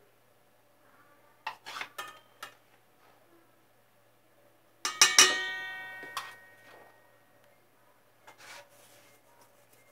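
A metal spoon clinking against a stainless steel bowl while spooning in flour: a few light clicks, then one loud strike about halfway through that rings out for about a second.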